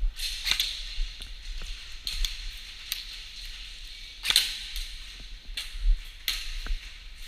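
Airsoft guns firing scattered single shots: sharp cracks at irregular intervals, about eight in all.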